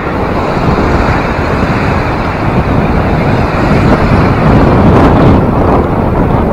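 Wind buffeting the microphone in a steady low rumble, over the rush of lake waves against the shore ice.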